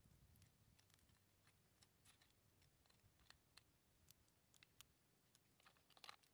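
Faint, scattered clicks and small cracks of a grilled crab's shell and legs being broken apart by hand, with a quick cluster of louder cracks near the end.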